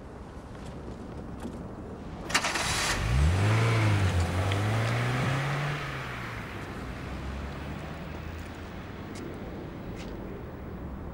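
Car engine started: a short burst of the starter, then the engine catches about three seconds in, revs up and drops back to a steady idle.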